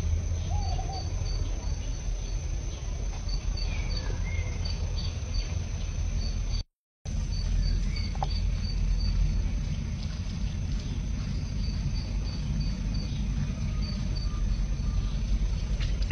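Outdoor ambience: a steady low rumble under high, evenly pulsed insect chirping in short runs, with a few faint short chirps. The sound cuts out completely for a moment a little under halfway through.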